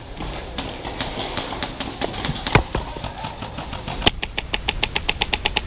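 Airsoft gun shots: a few scattered pops, then from about four seconds in a rapid full-auto burst of about ten shots a second, over a steady low rumble.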